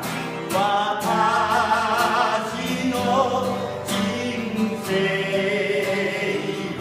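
A man sings a slow Japanese worship song with vibrato on the held notes, accompanying himself on a strummed acoustic guitar.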